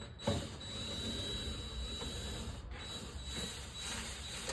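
Small electric tool motor running with a steady hiss and a thin high whine, stopping briefly about two and a half seconds in and starting again: a driver with a 7mm socket backing out a door-panel bolt.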